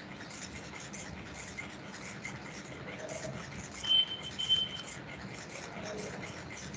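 Steady hiss from an open call microphone, with a few short high chirps about four seconds in.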